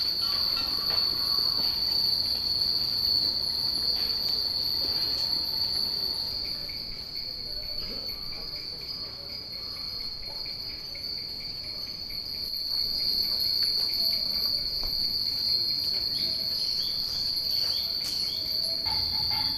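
A steady high-pitched insect drone runs throughout and is the loudest sound. Over it, many Japanese fūrin wind chimes ring and tinkle lightly, a little more busily near the end.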